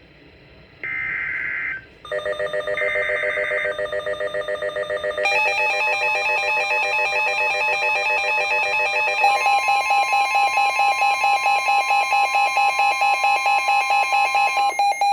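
NOAA Weather Radio EAS/SAME digital header bursts, two short screechy data bursts about a second and three seconds in, marking an incoming severe thunderstorm warning. From about two seconds in, a weather alert radio's fast-pulsing electronic alarm sounds, growing fuller about five and nine seconds in, over a steady warning tone.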